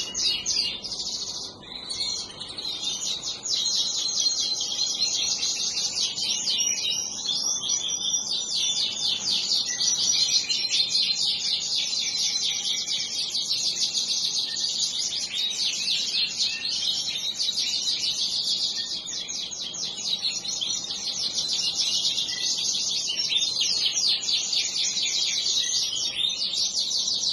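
Many small cage birds chirping and twittering at once in a continuous, dense chorus of quick high notes.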